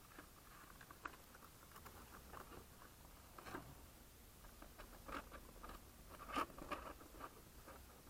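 Faint handling noise from a foldable flat-plate RC plane being unfolded in the hands: scattered light clicks, creaks and rustles from the board airframe and its fittings. The loudest comes about six and a half seconds in.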